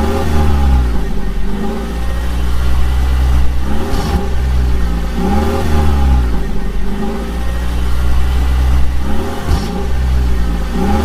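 Vehicle engine revving up and down over and over, a pitch that rises and falls in a regular cycle about every two to three seconds over a steady low drone.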